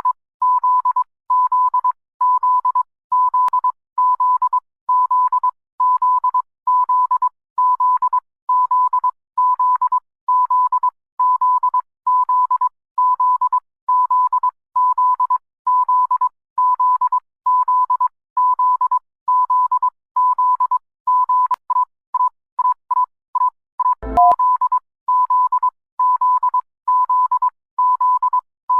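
Electronic emergency alert tone: a single pitch near 1 kHz beeping about once a second. About three-quarters of the way through comes a quick run of shorter beeps, a click and a brief lower note, and then the same steady beeping resumes.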